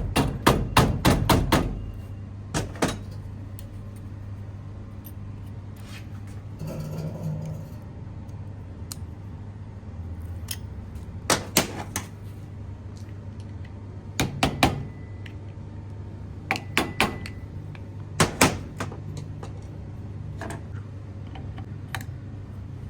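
Metal tool work on an AC compressor clutch assembly. A quick run of sharp hammer-like taps comes in the first two seconds, then occasional clinks and knocks in pairs and small clusters, over a steady low hum.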